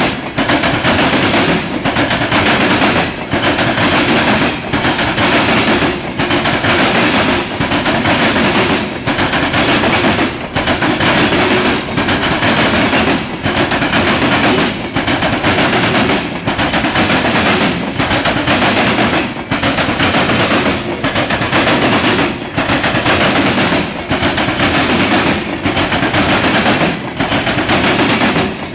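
Freight train of covered hopper cars rolling past, steel wheels clattering loudly on the rails, with a beat repeating about every second and a half.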